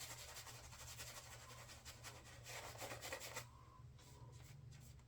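Shaving brush working lather, a rapid bristly scrubbing that stops about two-thirds of the way in and leaves a few faint taps.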